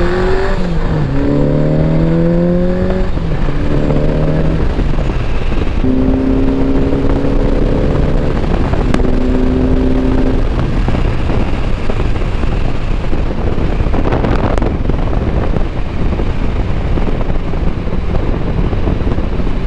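1983 Honda Gold Wing's flat-four engine under way, with wind and road noise. Its note climbs over the first few seconds, then holds at steadier pitches in steps until about ten seconds in. After that the rush of wind and road carries on alone.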